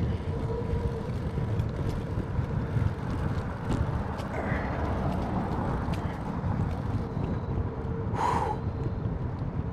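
Riding noise from a bicycle on the move: a steady low rumble of wind on the microphone and tyres on pavement, with scattered small clicks and rattles and a brief hiss near the end.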